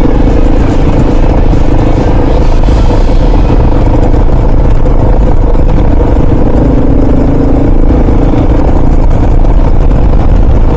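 Kawasaki KLR650 single-cylinder four-stroke motorcycle engine running at a steady cruise, loud and even, with a heavy low rumble.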